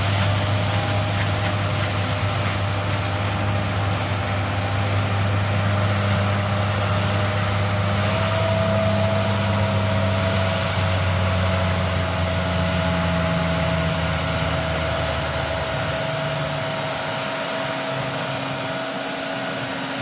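John Deere S780 combine harvester running at work: a steady low diesel drone under a constant mechanical whine. The low drone fades out about three-quarters of the way through as the combine pulls away.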